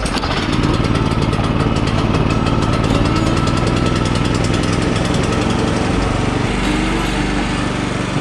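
Small gasoline engine of a Wood-Mizer LX25 portable sawmill running steadily at speed, with a change in its low tone about six and a half seconds in.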